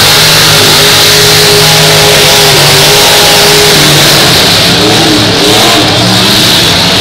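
Several full-size demolition derby cars' engines revving hard at once, their pitches rising and falling against each other, loud and unbroken.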